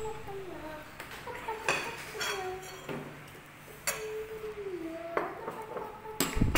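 Metal cutlery clinking against plates and a glass bowl as food is served and picked at: a series of sharp clinks, the loudest near the end, with a drawn-out voice-like tone in between.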